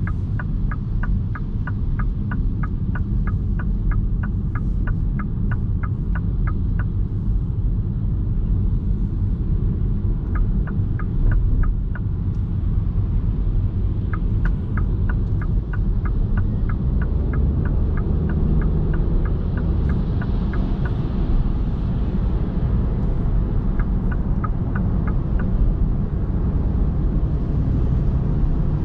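Steady low road and tyre rumble inside the cabin of a 2021 MINI Cooper S E ALL4 Countryman plug-in hybrid on the move. Over it the turn-signal indicator ticks evenly, about three ticks a second, in four separate runs: a long one over the first several seconds, two shorter ones around the middle, and a brief one near the end.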